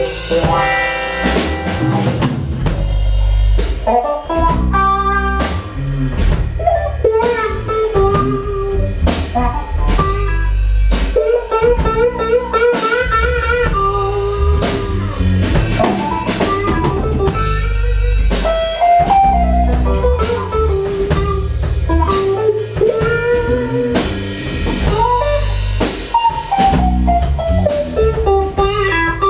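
A band playing a blues-rock instrumental passage: a lead guitar plays a solo line with bent, gliding notes over a drum kit and bass.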